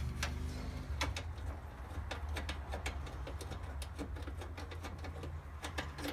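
Socket ratchet clicking in short, irregular runs while undoing a 10 mm headlight mounting bolt, over a low steady hum.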